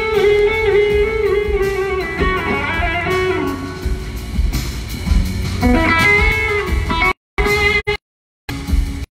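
Electric slide guitar solo over the band, heard live through an arena PA, playing long notes that glide smoothly in pitch. The recording cuts out briefly three times near the end.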